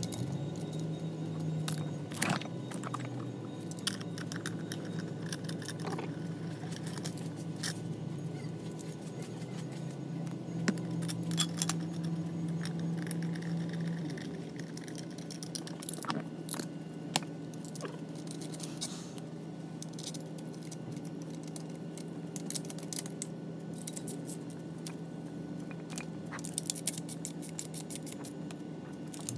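Scattered metallic clicks, taps and scrapes from hand tools and metal motor parts being handled while a golf cart motor's end housing is fitted, over a steady low hum.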